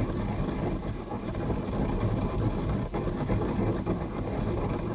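Mortar and pestle grinding dried garlic: a continuous rough, rumbling scrape of the pestle worked round the bowl, with a brief break about three seconds in.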